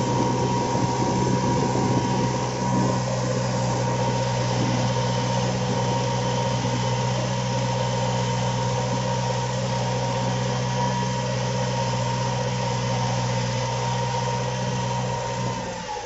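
Kubota MU4501's four-cylinder diesel engine running steadily under load, pulling a two-bottom reversible mouldboard plough deep through the soil. Near the end its note falls and fades.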